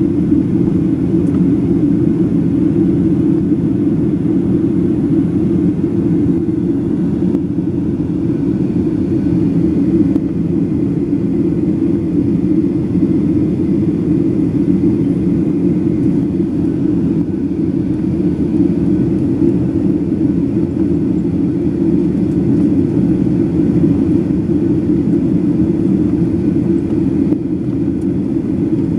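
Steady cabin rumble inside a Boeing 737-800 descending to land with its flaps extended: the CFM56-7B engines and the airflow over the airframe make an even, unchanging low noise.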